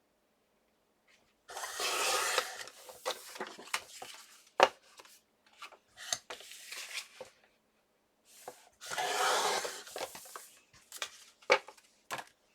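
Cardstock being cut on a paper trimmer: two sliding, rasping cuts of about a second and a half each, with sharp clicks and taps of the paper being handled in between.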